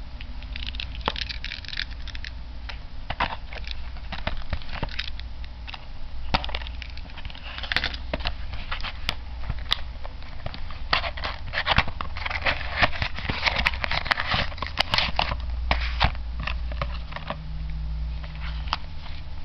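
A card-game trial deck's cardboard box being opened and its packaged contents handled: irregular crinkling, rustling and sharp clicks, busiest in the middle and latter part.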